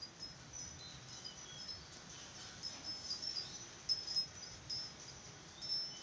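Oriental magpie-robin singing: a scattered run of short, high whistled notes.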